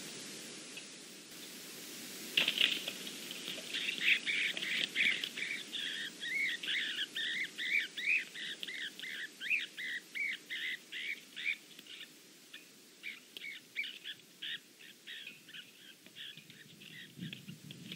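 Flying squirrel squealing in distress in an owl's grip: a rapid string of high squeaks, each rising and falling, two or three a second. They begin with a thump a couple of seconds in and thin out near the end.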